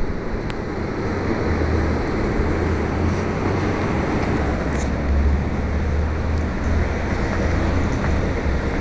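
Steady low rumble and hiss from a keychain spy camcorder's tiny microphone as the camera is carried about: handling and self-noise, with a few faint ticks.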